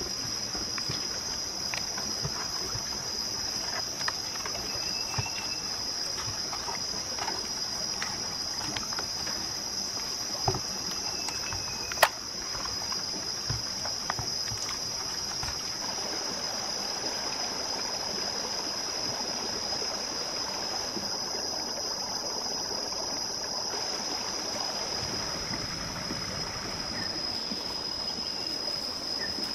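Steady high-pitched insect drone with running water underneath, and scattered faint clicks, one of them sharp about halfway through.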